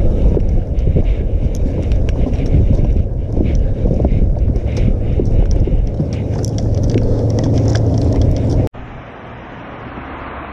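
Rumble and rattling clicks of a loaded gear cart rolling over wooden pier planks, heard from a camera riding on the gear. About nine seconds in it cuts to a quieter, steady wind noise on the microphone.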